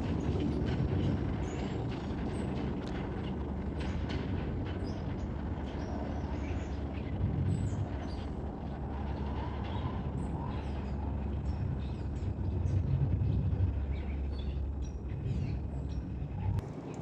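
R142 subway train running on the track: a steady low rumble with scattered short clicks, dropping away near the end.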